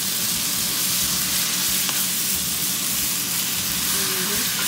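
Stir-fry of carrots, onion, Chinese sausage and fish cake sizzling steadily in a hot nonstick pan while a spatula stirs and tosses it, with a faint tap about two seconds in.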